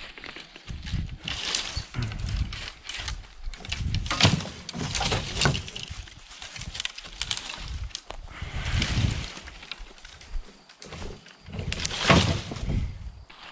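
Leafy cut branches being gathered off the grass and thrown onto a wooden trailer: irregular rustling and crackling of twigs and leaves, loudest about four seconds in and again near the end.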